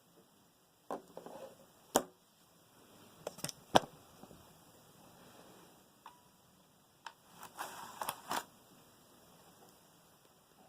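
Irregular sharp clicks and knocks, a dozen or so, the loudest about two seconds and four seconds in, with a brief cluster near the end.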